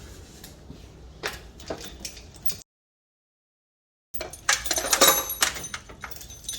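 Metal parts and tools being handled: scattered knocks and clicks, then, after the sound cuts out completely for about a second and a half, a busy run of sharp metallic clinks and clanks.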